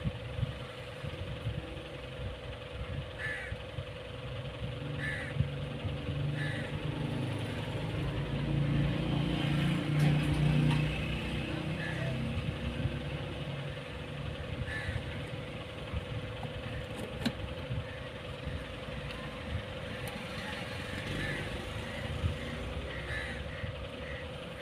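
Background sound of a low engine rumble that swells about eight seconds in and fades away a few seconds later, with a bird giving short repeated calls and a steady faint hum underneath.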